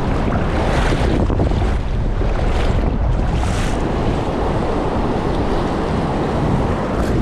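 Ocean surf washing against the shore, with wind buffeting the microphone; a louder wash about halfway through.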